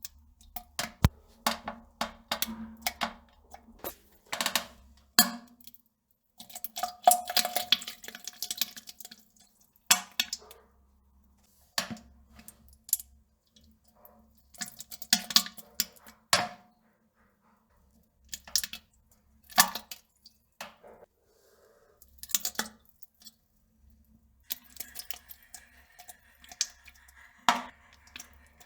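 Someone defecating into a toilet: irregular sharp crackling and plopping sounds with quiet gaps between them, and a longer spluttering burst about seven seconds in.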